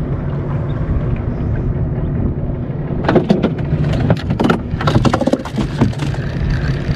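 Small boat's engine running steadily under wind and water noise, with a run of sharp, irregular knocks and splashes about three to five and a half seconds in.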